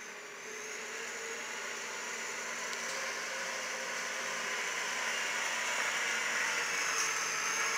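Side-by-side utility vehicle's engine running steadily as it drives, a whir with a faint wavering whine that grows louder as it comes closer.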